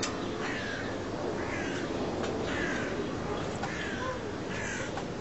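A bird calling over and over, about once a second, each call short and falling in pitch, over a steady low background rumble.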